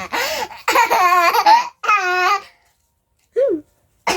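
A young child laughing in long, high, wavering bursts, three close together, then one short high cry about three and a half seconds in.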